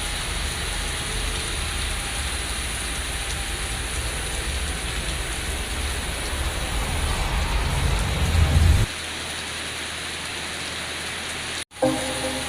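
Waterfall: a steady rush of falling water with a deep rumble underneath that stops abruptly about nine seconds in, leaving the water's hiss. Music comes in near the end.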